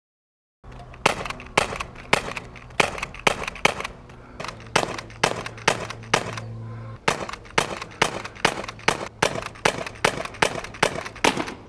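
Umarex Beretta 90two CO2 BB pistol fired semi-automatically in quick succession, two to three sharp shots a second, with a short pause near the middle, emptying its 21-round magazine as fast as the trigger can be pulled.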